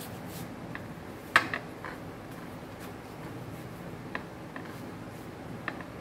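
Light taps and rubbing as cooked potato flatbreads are laid by hand on a stack on a plate, with one sharper tap about a second and a half in and a few fainter ones after.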